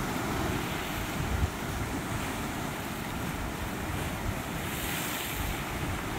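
Ocean surf rushing and breaking against the dark basalt rocks below a sea cliff, with wind buffeting the microphone and a brief low thump from a gust about a second and a half in.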